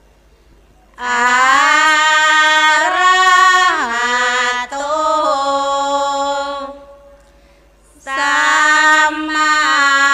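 A woman's voice chanting Pali in the Thai sarabhanya (sung Buddhist chant) style: a slow, drawn-out melodic line of held notes with sliding pitch bends. It comes in two phrases, the first starting about a second in and lasting some six seconds, the second starting near the end.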